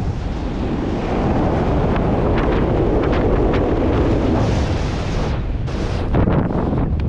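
Wind rushing over a helmet camera's microphone during flight under an open parachute canopy: a loud, steady rush that surges in brief gusts.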